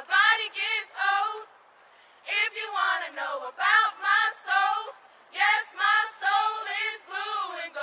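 Women's voices singing a chant a cappella in short phrases, pausing briefly about two seconds in and again around five seconds in.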